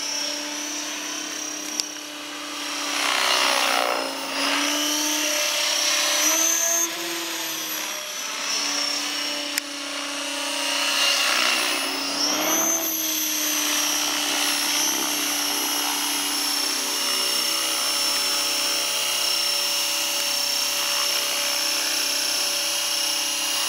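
Align T-Rex 550 electric RC helicopter's motor and rotor whine. It is steady, with two rising-and-falling swoops in pitch and loudness about 3 and 12 seconds in. It then settles into an even whine while the helicopter hovers low over the ground near the end.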